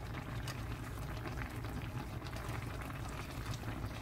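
Spicy tofu stew (dubu jjigae) boiling steadily in a wide pan: a dense crackle of small popping bubbles over a low steady hum.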